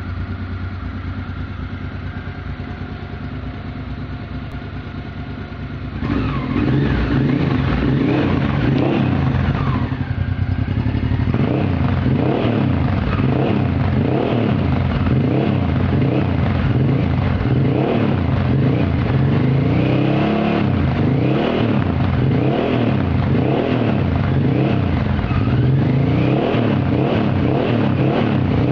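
Honda Africa Twin 750's V-twin engine through a locally made aftermarket exhaust, idling steadily. About six seconds in it gets louder and the throttle is blipped again and again, the revs rising and falling repeatedly.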